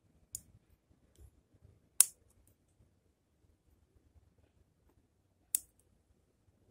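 Bonsai scissors snipping twigs on a small zelkova: three short, sharp snips, the first faint, the other two loud and about three and a half seconds apart.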